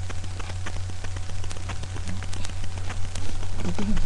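Steady low electrical hum with scattered faint clicks and crackle, typical of a webcam microphone's noise floor.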